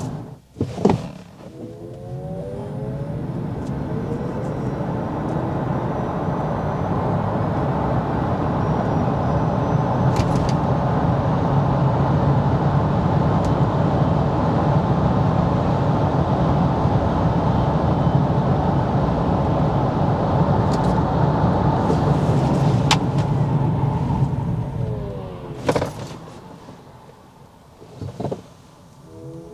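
Maxus eT90 electric pickup driven from inside the cabin: the electric motor's whine rises as it pulls away, steady road and tyre noise at speed holds for about twenty seconds, then the whine falls as the truck slows almost to a stop. A few sharp clicks are heard, and the whine starts rising again at the very end.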